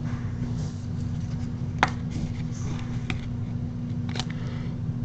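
Trading cards being handled, with a few sharp light clicks about two, three and four seconds in, over a steady low hum.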